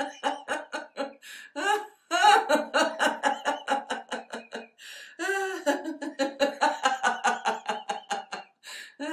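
A woman laughing out loud in runs of rapid, rhythmic ha-ha pulses, about five or six a second, broken by a couple of short pauses: deliberate laughter yoga exercise laughter.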